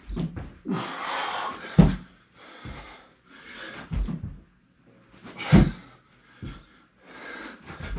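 A man breathing hard with loud, rasping exhales while doing burpees. Between the breaths come dull thuds of his feet and body landing on the floor, roughly every one to two seconds.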